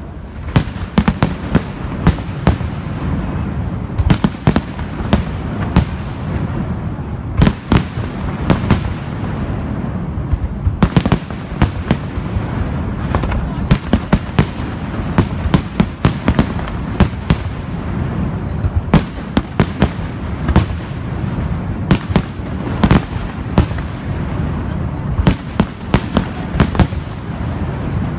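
Aerial firework shells bursting in a dense display: dozens of sharp bangs, some in quick clusters, over a steady low rumble.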